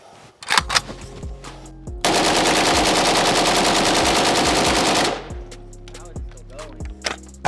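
Pioneer Arms 5.56 Sporter AK rifle firing full-auto in one continuous burst of about three seconds, starting about two seconds in. It empties a 30-round magazine at roughly ten shots a second.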